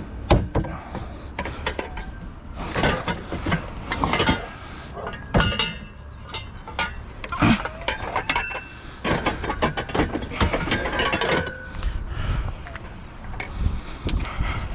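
Scrap metal being handled and carried, clanking and rattling in a run of irregular knocks and scrapes.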